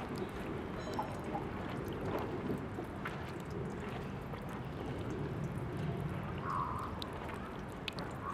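Tap water trickling from a park drinking fountain's faucet and splashing steadily into the basin, with many small irregular splashes and drips.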